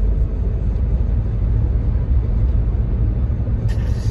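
Steady low road-and-engine rumble inside the cabin of a moving car.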